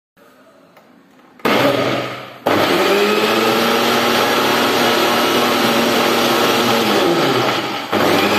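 Preethi Chef Pro mixer grinder blending a liquid banana smoothie in pulses. The motor starts about a second and a half in, eases off briefly and starts again, then runs steadily with a whine. Near the end its pitch sinks as it is switched off, and it is switched straight back on.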